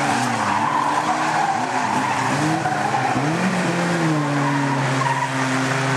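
Small Micro banger racing cars' engines revving hard, their pitch rising and falling as the drivers slide and spin, then holding steadier near the end, with tyres skidding on the track.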